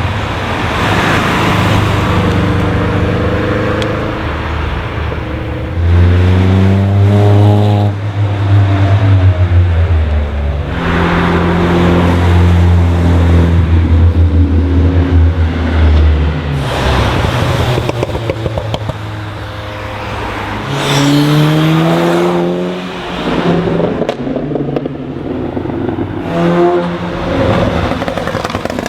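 Several cars accelerating past one after another, their engine notes rising in pitch as they pull through the gears. A loud, low engine note holds for several seconds in the middle.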